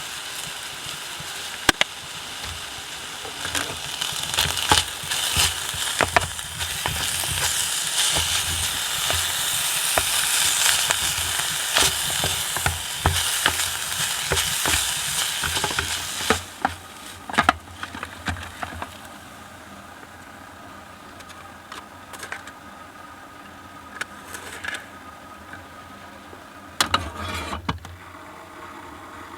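Ground beef frying in a pan on a wood stove: a loud, steady sizzle with scattered clicks and taps of a utensil stirring the pan. The sizzle drops away about halfway through, leaving only occasional taps.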